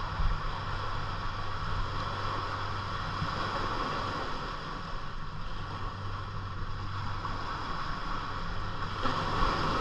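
Steady sound of a boat on open water: water noise and wind on the microphone over a constant low hum.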